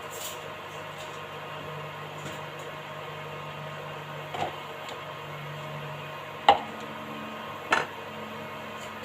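Steady hum and hiss of a pot of banana tea boiling on the stove, broken by a few sharp knocks, the loudest about six and a half seconds in.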